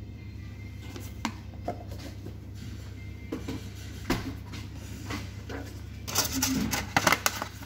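Clear plastic food container being handled, crinkling and clicking loudly for a second or so near the end, after a few light knocks earlier on, over a steady low hum.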